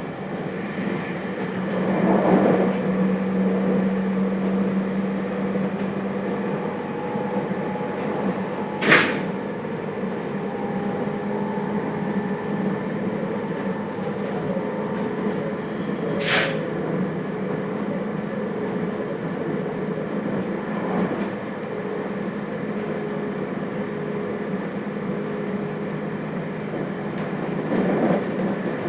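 JR Hokkaido 721 series electric train (thyristor phase-control set) running, heard from inside the motor car: a steady hum with several held tones over rolling noise. Two sharp clicks cut through, about a third of the way in and again near the middle.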